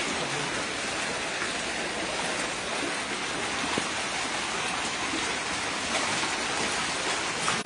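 Steady hiss of water that does not let up, with a few faint ticks standing out.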